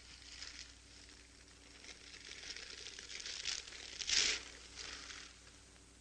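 Soft rustling and crinkling noises, a louder rustle about four seconds in and a smaller one just after.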